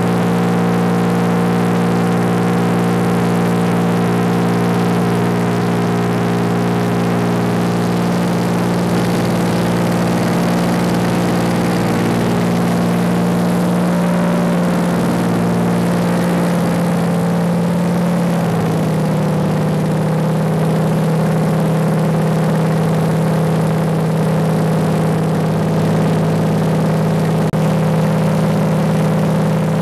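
De Havilland Beaver floatplane's engine and propeller running at high power through the takeoff run and climb-out, heard from inside the cabin. A steady, loud engine note that drops slightly in pitch about two-thirds of the way through.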